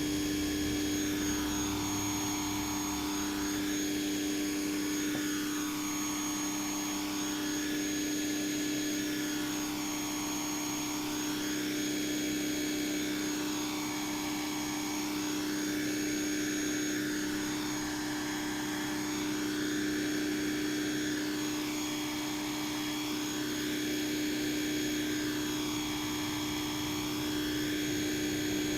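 Corded 1800 PSI electric pressure washer with a brushed motor, running steadily with the trigger held and spraying water. It makes a steady hum over the hiss of the spray, which rises and falls slowly about every four seconds.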